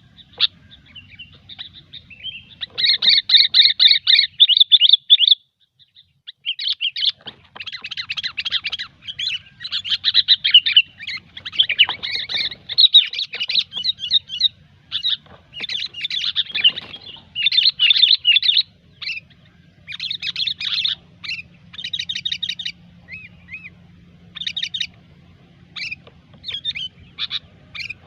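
Sooty-headed bulbul (kutilang) chattering in the rapid, busy 'gecor' style, loud bursts of quick chirped notes repeated one after another, with a brief pause about five seconds in. This is the kind of bulbul call played as a lure for trapping.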